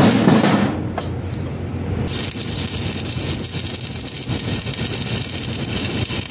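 Stick-welding arc crackling steadily as an electrode is run on a steel bracket, starting suddenly about two seconds in after a brief louder noise at the start.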